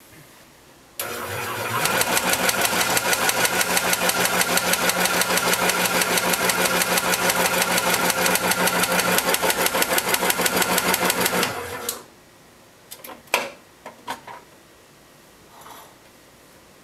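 Nostalgia Electrics electric martini shaker running with its speed dial turned all the way up, its motor hum carrying a loud, rapid banging of about six knocks a second. The banging comes from running at top speed. It starts about a second in and cuts off suddenly after about ten seconds, followed by a few scattered knocks and clicks.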